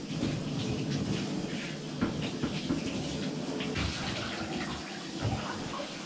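Water from a handheld shower sprayer running and splashing over a dog's coat into a bathtub, with uneven little splashes throughout.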